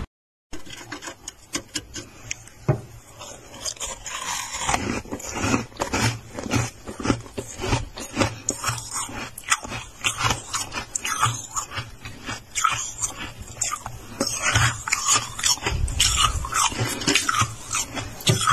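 Close-up crunching and crackling of freezer frost, a dense irregular run of crisp crunches with dull low thuds, starting after a brief silent gap.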